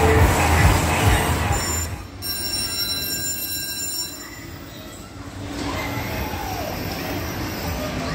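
Amusement-arcade din with a kiddie ride running and heavy low pulsing, then a steady high whine for a couple of seconds before it fades to a general hubbub around battery bumper cars.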